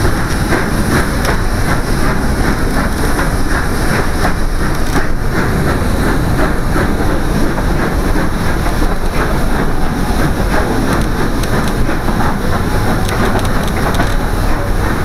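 Steam-hauled train running on the rails, heard from a carriage window: a steady loud rumble and rush of the moving train with faint clicks of the wheels.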